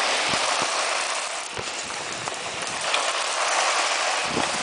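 Heavy wind-driven rain pouring down in a strong thunderstorm, a dense steady hiss that eases slightly for a moment and then builds again, with a few low thumps.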